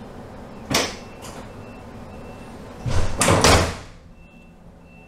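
Double folding door (Drehfalttür) of an old DB n-Wagen coach operating: a short sharp clack under a second in, then a louder clatter with low thuds lasting under a second at about three seconds in as the door panels fold and shut.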